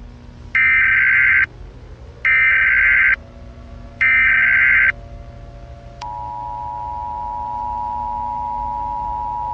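Emergency Alert System signal: three loud, roughly one-second SAME header data bursts, harsh digital warbles, followed about six seconds in by the EAS two-tone attention signal, a steady dual tone that holds on.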